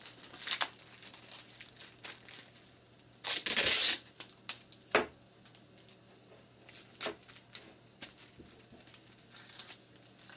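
Tape ripped off the roll in one loud tear about three and a half seconds in, with a shorter tear near the start. Between the tears, a plastic bag crinkles and rustles in short bursts as it is pressed flat and taped.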